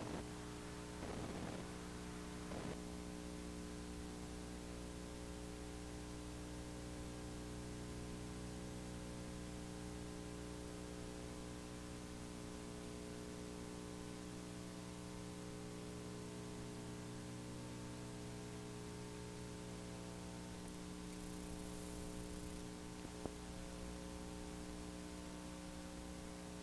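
Steady electrical mains hum with a faint hiss, on the audio track of an old videotape. There are a few brief faint sounds in the first three seconds and a single click about 23 seconds in.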